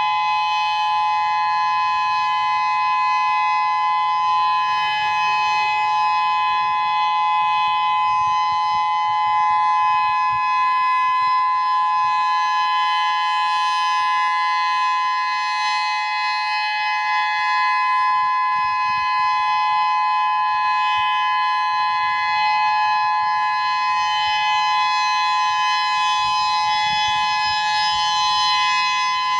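Whelen 3016 electronic siren sounding its steady alert signal, the 3-minute test alert: two held tones sounded together at a constant pitch, with no rise or fall.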